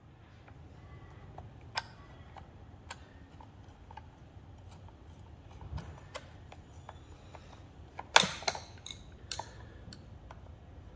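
Scattered small clicks and taps of parts and tools being handled on a workbench, with a louder cluster of clicks about eight seconds in.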